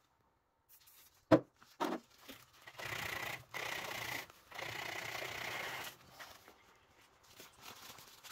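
Fine steel wool scrubbed over a rusty iron meteorite slice wet with WD-40, taking the rust off: a steady scratchy rubbing in two stretches of about a second and a half each. Before it come two sharp knocks about a second in, the first the loudest sound.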